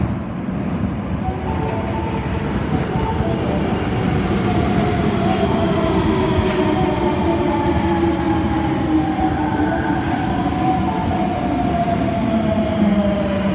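Tanimachi Line 22 series subway train running, with a steady rumble and a whine that slowly falls in pitch over several seconds.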